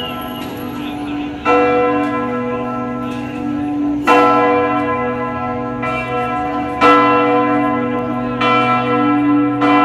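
Church bells ringing in a cathedral bell tower, struck again every one to two and a half seconds, each stroke ringing on into the next.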